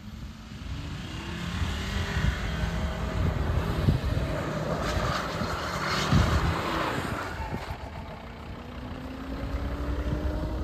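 Volvo XC70 D4 AWD's five-cylinder diesel engine accelerating, its pitch rising over the first couple of seconds and again near the end. A rushing noise swells in the middle.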